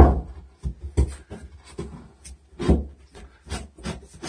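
A wooden board scraping and knocking against the cut edges of a drywall opening as it is worked into the wall cavity. It comes as a string of irregular scrapes and bumps, loudest at the start and again a little past halfway.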